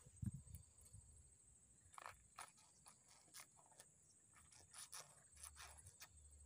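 Near silence with faint handling noise: a soft low bump just after the start, then scattered light clicks and rustles as hands work a soft frog lure and its hook on the fishing line.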